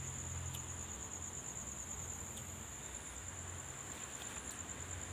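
Crickets chirping in a steady, high, continuous trill.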